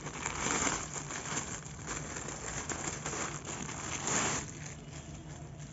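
Clear plastic packaging bag crinkling and rustling as hands handle and open it, with a louder burst of crinkling about four seconds in and quieter rustling near the end.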